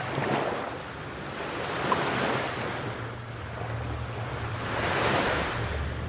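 Sea waves washing in slow surges, swelling three times, over a low steady hum.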